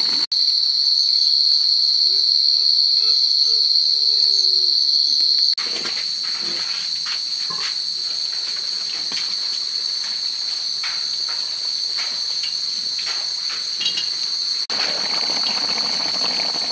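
Insects droning loudly and steadily on one high pitch, with a few light clicks and knocks in the middle part.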